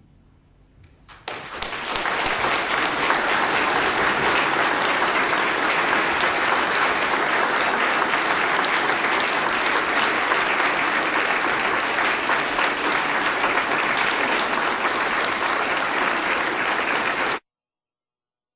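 The last notes of the music die away, then an audience applauds steadily for about sixteen seconds. The applause is cut off suddenly near the end, leaving dead silence.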